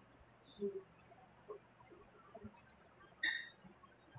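Faint clicking of a computer keyboard as a few words are typed, with a short high-pitched tone about three seconds in.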